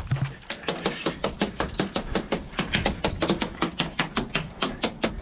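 A rapid, fairly even string of sharp airsoft cracks, about six a second: airsoft gunfire.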